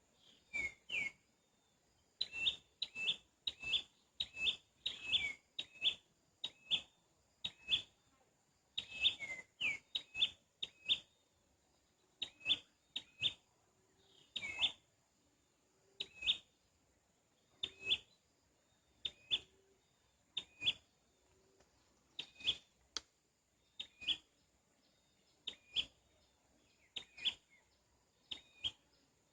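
A bird calling over and over with a short, sharp chirp that dips and then rises in pitch. The chirps come singly or in quick runs of two or three, about one a second, with short pauses between.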